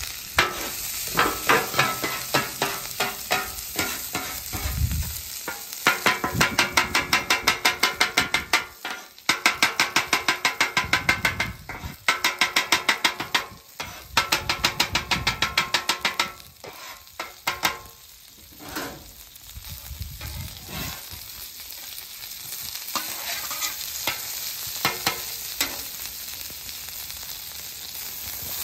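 Butter and garlic sizzling on a Blackstone steel flat-top griddle, with a metal bench scraper chopping the garlic against the griddle plate in quick runs of about five or six taps a second through the middle of the stretch. Near the end only the sizzle and a few scattered knocks remain.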